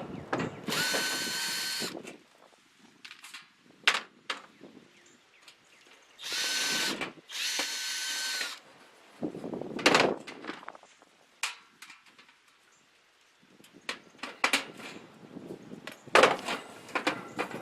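Power drill running in three short bursts of about a second each, spinning up and winding down, as screws are driven out of a toaster oven's steel casing. Sharp clicks and knocks of handled metal parts come in between.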